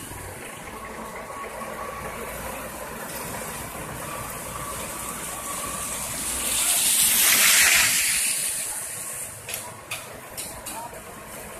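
A car passes close on a wet road, the hiss of its tyres through the water swelling and fading about seven seconds in, over the steady running of an asphalt paver. Near the end come a few short scrapes.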